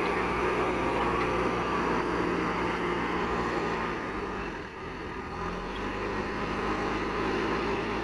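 JCB 3DX backhoe loader's diesel engine running hard under hydraulic load as the front loader bucket scoops soil and lifts it. It eases briefly about halfway through, then works up again.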